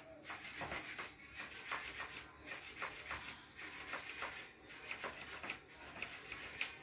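Motorized plush flopping-fish cat toy flapping against the carpet: a faint, even rubbing about three strokes a second, with a cat pawing at it.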